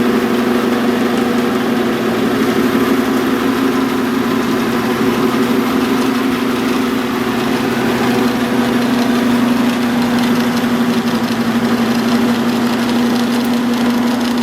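Kalamazoo 7x12 horizontal metal-cutting band saw running, its 110-volt electric motor and moving blade giving a steady, even hum.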